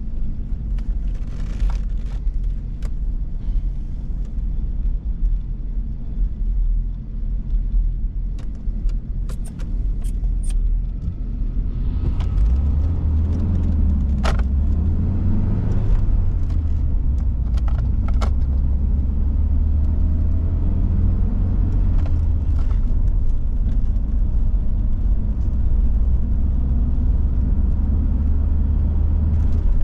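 Volvo 740 GL being driven, a steady engine and road rumble that grows louder about twelve seconds in, with scattered sharp clicks and rattles.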